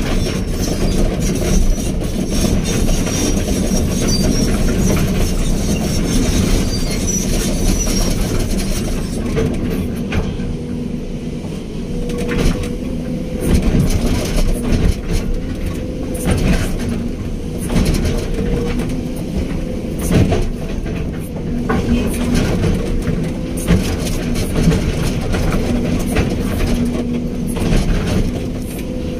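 Excavator's diesel engine running steadily under load with a steady drone, broken by scattered metallic clanks and knocks from the machine at work.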